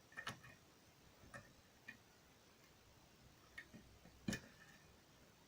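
Faint, scattered metallic clicks of a lock pick working the pins of a pin-tumbler lock, about half a dozen, the loudest a little after four seconds in.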